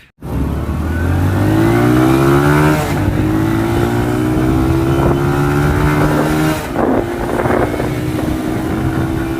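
Honda CD 70's small single-cylinder four-stroke engine accelerating hard. Its pitch climbs, drops at a gear change about three seconds in, climbs again, and changes once more near seven seconds before holding steady.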